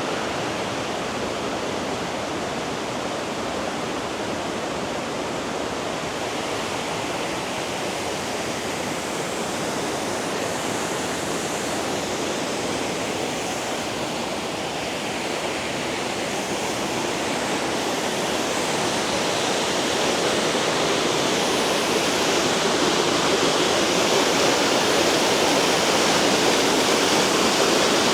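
Small waterfall: a steady rush of falling water, growing louder about two-thirds of the way through.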